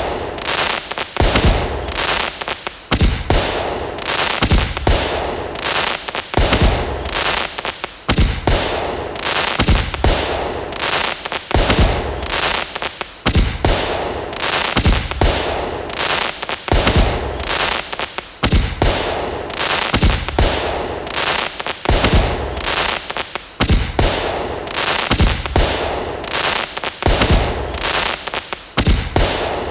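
Fireworks sound effect: a string of bangs, about one to two a second, with hissing and crackling between them.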